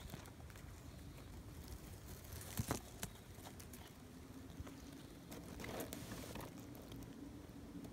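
Faint rustling of grass and leaves brushed close to the microphone, with a few sharp clicks and knocks about two and a half to three seconds in.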